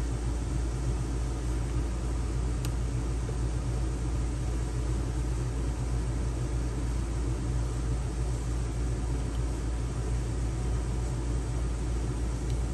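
Steady low rumble of machinery running in the background, like an engine or generator at idle, with one short click about two and a half seconds in.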